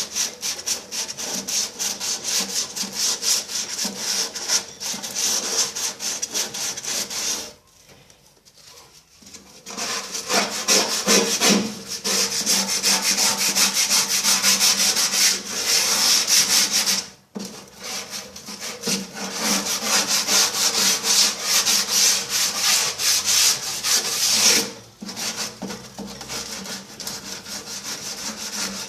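Rust being scrubbed off the metal interior wall of a microwave oven with rapid back-and-forth abrasive strokes. The strokes stop for about two seconds roughly eight seconds in, and pause briefly twice more later on.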